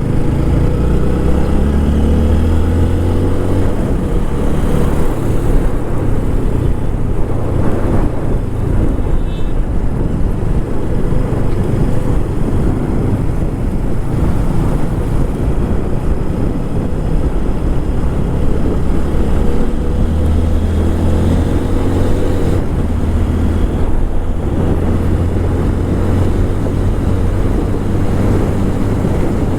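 TVS Apache RTR 160 4V's single-cylinder engine on its stock exhaust, running under way. The engine note climbs in pitch as it accelerates in the first few seconds and again about two-thirds of the way through, over a steady rush of wind and road noise.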